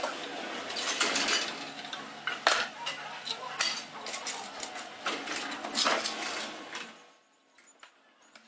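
Small metal parts and hand tools clinking and rattling on a workbench as parts are fitted to an electric motor's terminal box, in a run of irregular clicks and knocks. The clatter stops about seven seconds in.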